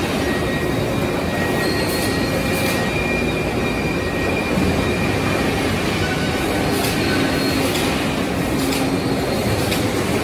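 Sawmill log conveyor and Hewsaw small-log sawing line running: a loud, steady machinery rumble with faint high whining tones and a few short knocks.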